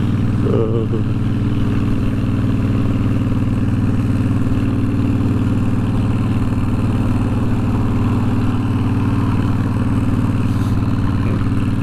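Motorcycle engine running at a steady cruising speed, with wind and road noise.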